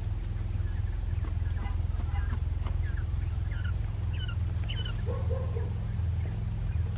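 Japanese quail chirping and peeping in short calls, several of them falling in pitch, with a lower call about five seconds in, over a steady low hum.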